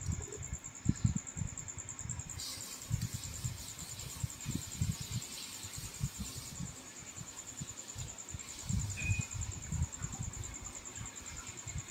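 A continuous high, finely pulsing trill of crickets or similar insects, with irregular low thumps and bumps close to the microphone.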